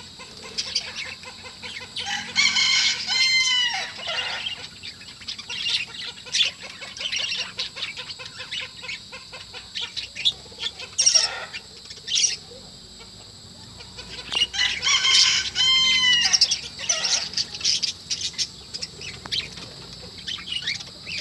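Budgerigars chirping and chattering in quick high bursts, with a longer call that falls in pitch about three seconds in and again around fifteen seconds.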